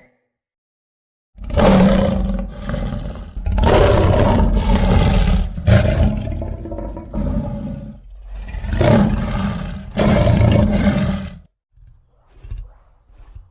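Synthetic kaiju monster roar sound effect: after about a second and a half of silence, a long, harsh roar comes in several loud surges for about ten seconds, then dies away into faint low rumbles near the end.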